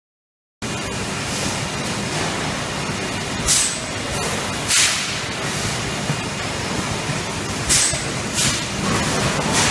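RP Injection 270 PM-CE PET preform injection moulding machine running in production: a steady machine hum with four short, sharp hisses spaced a few seconds apart.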